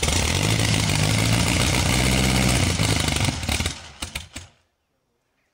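Vintage Henderson inline four-cylinder motorcycle engine kicked over. It fires and runs steadily for about three and a half seconds, then stutters through a few uneven firings and stops about four and a half seconds in.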